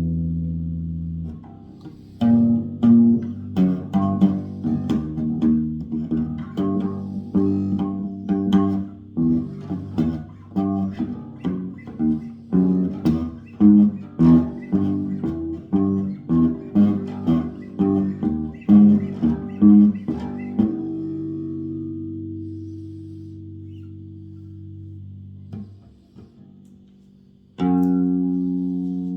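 Electric bass guitar being played freely: a long run of plucked notes at shifting pitches, about two a second, then a held note left to ring out and fade for several seconds. A new note is struck near the end.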